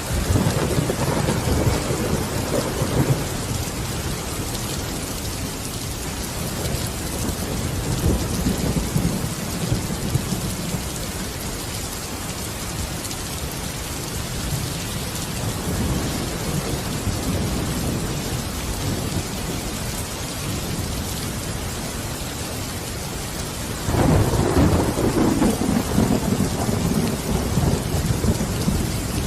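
Steady rain with rolling thunder: a low rumble at the start, softer rolls about a third and about halfway through, and a sudden loud roll of thunder starting near the end.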